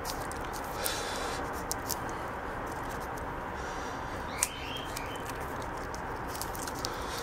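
Hands wrapping electrical tape around a battery charger's transformer: small handling clicks and a couple of brief rasps of tape over a steady hiss, with a sharp click about halfway through. A small bird chirps twice just after that click.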